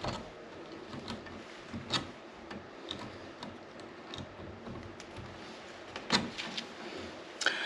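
Pliers gripping and twisting the stripped copper ends of two wires together, making faint, irregular metal clicks and ticks, the sharpest about two seconds in and about six seconds in.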